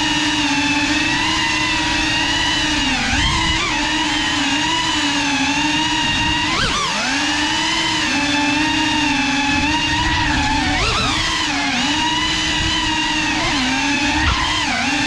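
Small FPV quadcopter's electric motors and propellers whining steadily, the pitch dipping and swooping up again several times as the throttle changes, with a short knock near the end.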